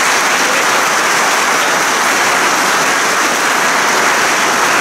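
A congregation applauding: dense, steady clapping.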